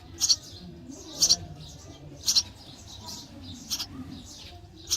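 Sparrow chirping: five short, sharp, high chirps, about one a second.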